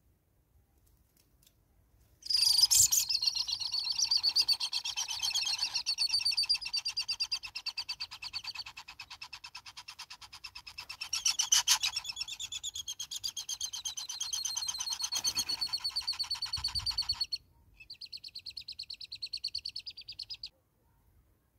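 Hornbill calling: a long, rapid run of buzzy, chattering notes starting about 2 s in and lasting some 15 seconds, then after a short pause a shorter, quieter run.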